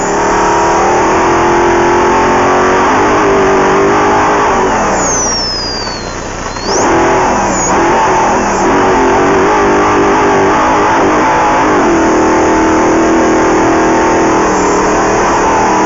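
Off-road race vehicle's engine under hard acceleration, its note rising and falling with throttle and gear changes. It drops briefly about six seconds in, then climbs again.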